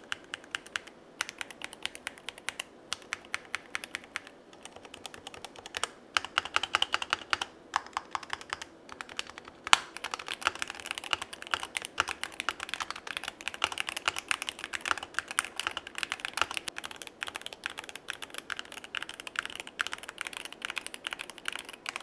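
Typing test on a DrunkDeer A75 keyboard with magnetic linear switches, keystrokes clacking in quick succession. The typing is lighter and sparser at first, then fast and continuous from about six seconds in.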